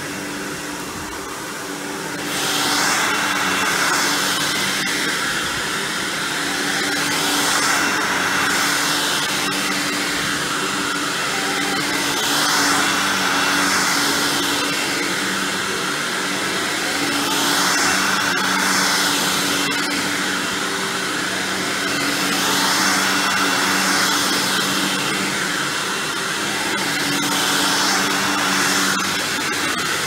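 Hoover WindTunnel Anniversary Edition self-propelled upright vacuum running on carpet: a steady motor hum under a broad rush of suction. The rush rises and falls every few seconds as the vacuum is worked back and forth.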